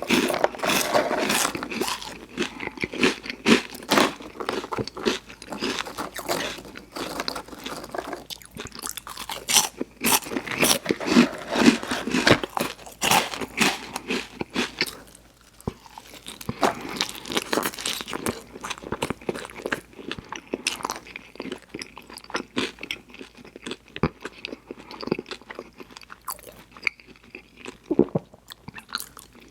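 A person eating In-N-Out fast food close to the microphone: repeated bites, crunching and wet chewing in an irregular run, easing off briefly about halfway through.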